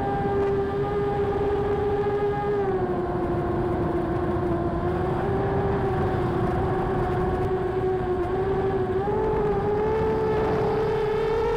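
Brushless motors and three-blade 7-inch props of an FPV quadcopter whining steadily as heard from the onboard camera, over a rough rush of wind. The pitch dips a little about two and a half seconds in and climbs again near the end as the throttle changes.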